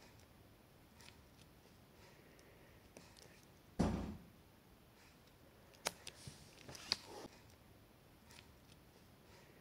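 Faint handling noises of fingers working on a small phone on a table: one low thump about four seconds in, then a few sharp clicks and short rustles around six to seven seconds.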